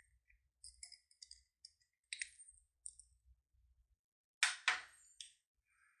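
Small clicks and clinks from a thin metal pin prying between the plastic dial rings of a Master Lock 1534D word combination padlock as the dials are worked. A louder cluster of sharp clicks comes about four and a half seconds in.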